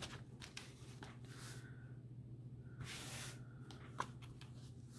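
Faint rustling as a paper hexagon template and fingertips slide over cotton fabric, two soft brushes about a second apart, then a light tick near the end, over a steady low hum.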